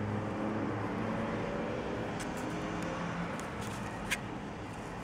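Steady low background hum and hiss with faint shifting low tones, and a short click about four seconds in.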